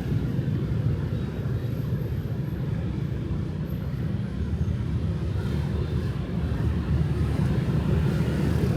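Road traffic: a steady low rumble of engines and tyres, with no single vehicle standing out.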